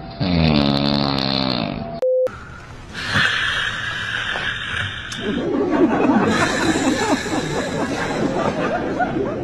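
A drawn-out pitched sound falling in pitch, cut off by a short beep, then several people laughing through the second half.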